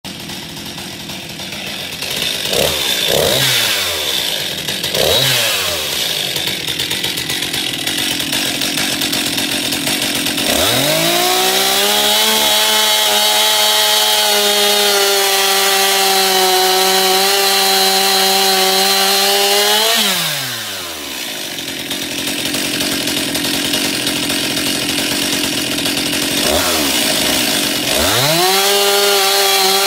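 Stihl MS 261 two-stroke chainsaw idling with a few quick throttle blips, then run up to full throttle about ten seconds in and held at a steady high pitch for about nine seconds while cutting through a log. It drops back to idle and revs up again near the end for the next cut.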